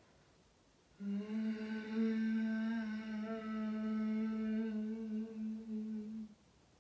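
A woman's voice sounding one long, steady note on a slow out-breath, starting about a second in and lasting about five seconds. It is a vocalised exhale, used in pregnancy yoga breathing to draw out the length of the out-breath.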